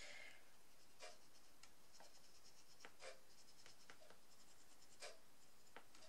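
Faint, light strokes of a glitter brush pen's tip on card, roughly one a second, over quiet room tone.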